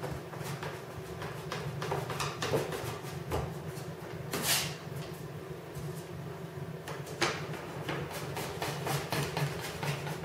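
Hand fluting pliers crimping flutes into the flange of an aluminum wing rib to flatten a remaining bow: a run of small metallic clicks and clacks, with two louder ones about four and a half and seven seconds in.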